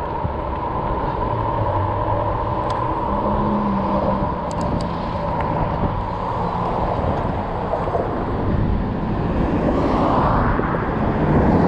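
Steady riding noise from a RadRover fat-tyre electric bike: a continuous rush of tyres and wind, with a few faint clicks and a swell of louder rush about ten seconds in.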